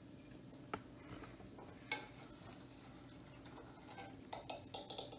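Metal spoon clinking against a stainless steel pot while fried fish is scooped out: two single clinks in the first two seconds, then a quick run of taps near the end.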